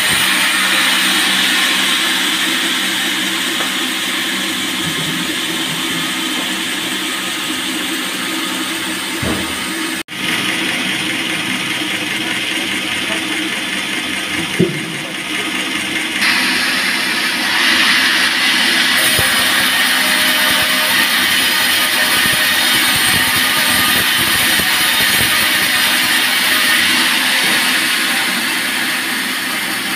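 Band sawmill running and cutting a teak log, a steady loud machine noise with a brief sharp cut-out about ten seconds in.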